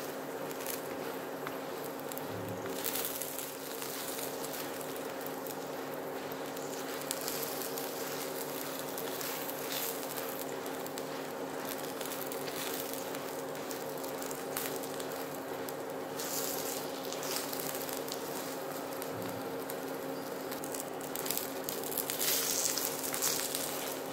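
A paratha frying in oil on a non-stick tawa over an induction cooktop: the cooktop gives a steady buzzing hum under a crackling sizzle, which grows louder near the end.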